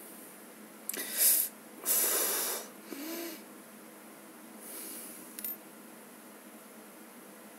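A person breathing hard: two loud, noisy breaths about a second apart, then a short low vocal sound, a fainter breath and a small click.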